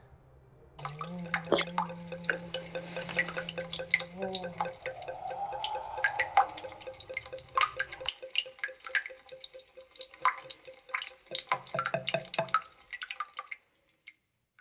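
Bathroom tap dripping: a fast, irregular run of water drips starting about a second in and stopping near the end, over a faint steady hum.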